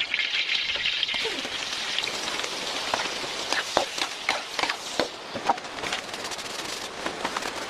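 Food sizzling and crackling as it fries in hot oil, a steady hiss scattered with sharp pops.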